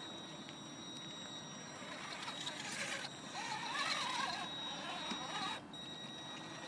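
Traxxas Summit electric RC rock crawler's motor and drivetrain whining as it creeps down over rocks, the pitch wavering with the throttle and loudest around the middle, over a steady hiss of rain and river water.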